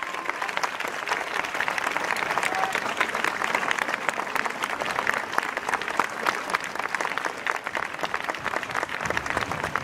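A crowd applauding, many hands clapping in a dense, steady patter.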